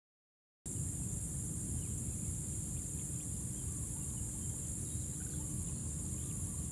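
Field ambience: a steady high-pitched insect trill over a low rumble, with a few faint chirps. It starts about half a second in.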